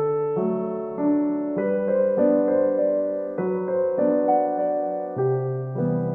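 Background music: a soft piano or electric piano piece, chords changing every second or so.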